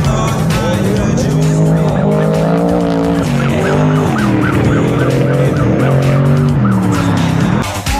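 Off-road race vehicles passing at full throttle on a dirt track, their engines climbing in pitch and dropping back several times as they shift up through the gears.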